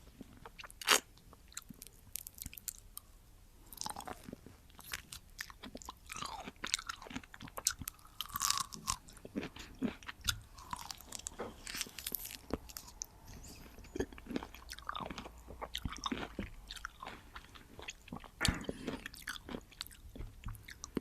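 Close-miked chewing and biting of juicy orange segments: irregular wet, crunchy mouth sounds, with a sharp click about a second in.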